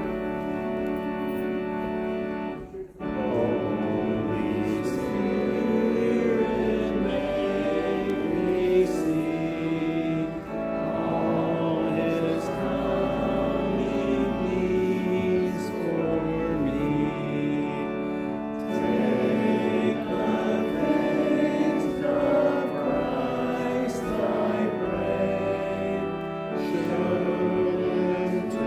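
Organ music playing slow, sustained chords as the service's closing postlude, with a brief break about three seconds in.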